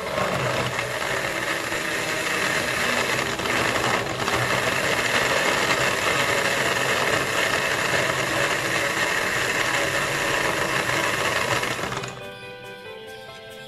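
Electric countertop blender running, crushing ice cubes and blending ripe mango into a shake; it starts right away and stops abruptly about twelve seconds in.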